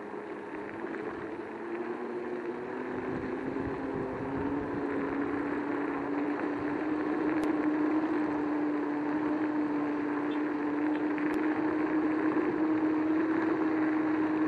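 Joyor S10-S electric scooter's hub motors whining as the scooter speeds up on a dirt road, the whine slowly rising in pitch and getting louder, over the rush of tyres on the dirt.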